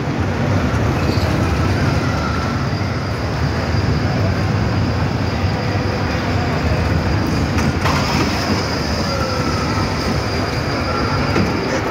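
Small indoor roller coaster's cars running along the steel track with a steady rumble. A thin high whine comes in about two-thirds of the way through.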